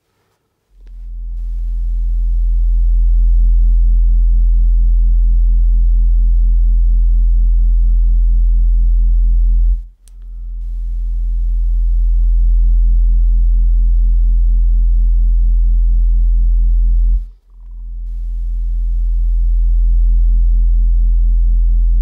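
Car subwoofer playing a steady 42 Hz sine test tone in the cabin, very loud, measured at about 117.6 dB. The tone builds up over the first few seconds, cuts out briefly about ten seconds in and again near seventeen seconds, then comes back each time.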